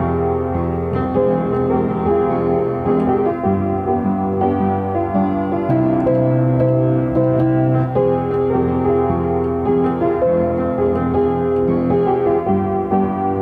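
Solo piano playing a first-draft original composition: a melody and chords over held bass notes.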